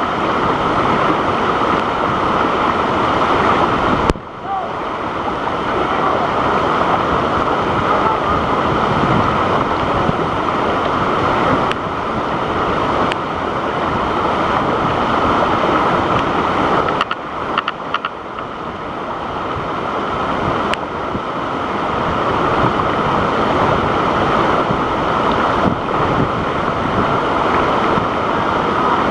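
Waterfall's rushing water: a loud, steady wash of noise that dips briefly about four seconds in and again around seventeen seconds in.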